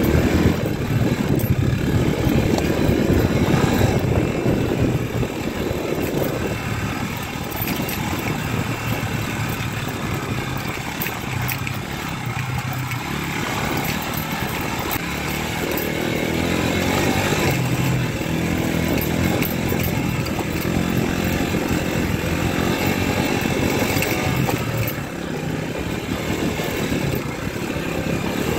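Mondial 150 KT motorcycle's single-cylinder four-stroke engine running under way at moderate revs, the pitch rising and falling a little as the throttle changes.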